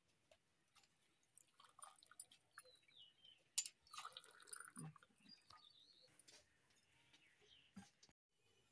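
Faint sounds of milk tea being ladled through a tea strainer into steel tumblers: soft trickling and small clinks of steel on steel, with one sharper click about three and a half seconds in.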